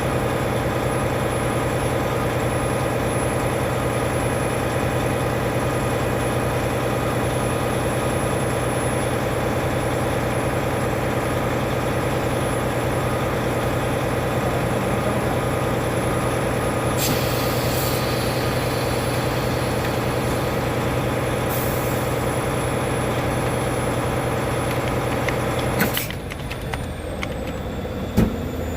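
Heavy diesel semi-truck engine idling steadily, then stopping or cutting away abruptly about three-quarters of the way through, followed by a single knock.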